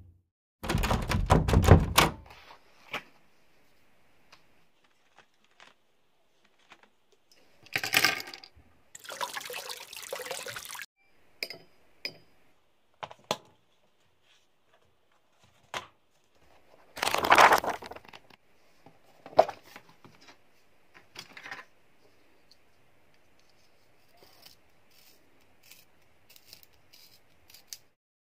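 Art supplies being handled: boxes, a paint set and a sketchbook taken out and set down, giving short bursts of rustling and clatter with scattered light knocks and clicks between. The loudest bursts come about a second in and around seventeen seconds in.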